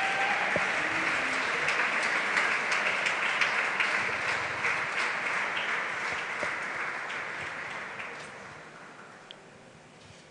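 Audience applauding the couples onto the dance floor, a dense clatter of many hands clapping that dies away about eight seconds in.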